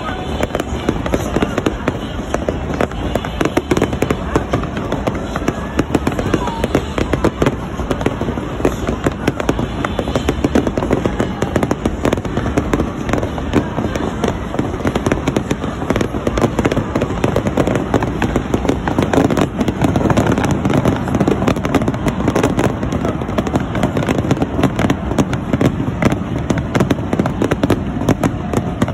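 Aerial fireworks going off in a dense, continuous barrage of bangs and crackles, many reports every second without a pause.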